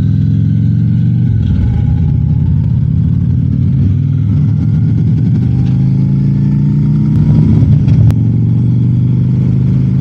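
Harley-Davidson motorcycle engine running under way. The engine note wavers from about a second in to about five seconds in, then holds steady.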